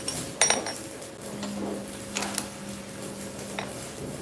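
Metal clinks and knocks as a steel ring is handled at a lathe's three-jaw chuck and the chuck key is fitted and turned, with the sharpest clink about half a second in. A low steady hum comes in about a second in.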